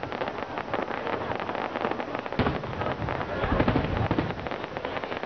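Aerial fireworks crackling densely, many small cracks in quick succession, with one sharp bang about halfway through and a few deeper booms just after.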